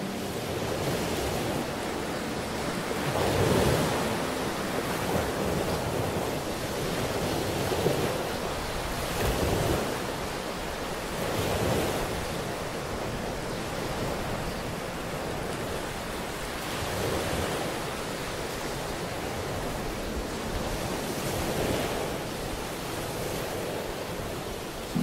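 Ocean surf, likely from a relaxation soundtrack, with waves washing in and drawing back in slow swells a few seconds apart.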